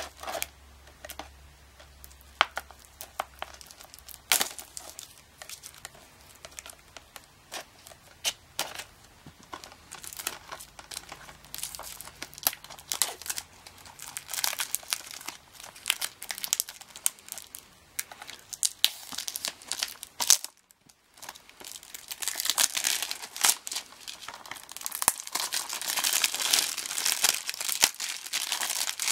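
Plastic shrink wrap on a Blu-ray case being slit with a knife, then torn and peeled off, with crinkling and crackling. There is a brief break about two-thirds through, and the crinkling is densest near the end as the wrap is pulled away.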